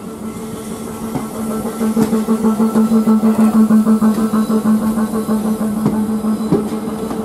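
South Western Railway electric multiple unit pulling out over the station pointwork: a steady electric hum that grows louder and pulses about two seconds in, with scattered clicks from the wheels over the rail joints and points.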